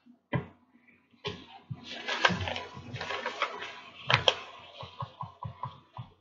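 Paper being handled and folded on a tabletop: a crinkling, rustling sheet with sharp snaps, followed near the end by a quick run of short taps.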